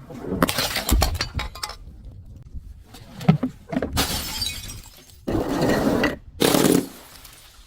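Glass bottle breaking and shattering: a quick run of sharp cracks and clinks, then three longer, louder crunching crashes of glass being crushed.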